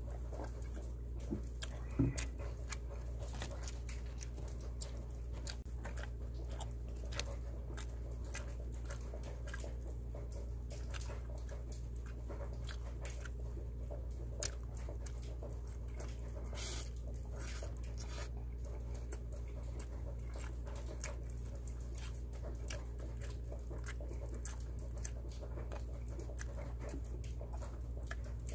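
Close-up mouth sounds of a person eating and drinking: gulping makgeolli from a plastic bottle and chewing pizza, with many small wet clicks and smacks. These play over a steady low hum, with a single thump about two seconds in.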